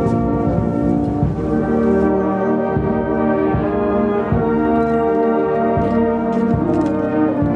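Brass band playing a slow piece in full sustained chords over a regular beat, about one every three-quarters of a second.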